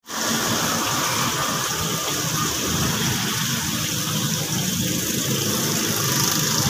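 Steady hum of an aquarium air pump with air stones bubbling in the tank.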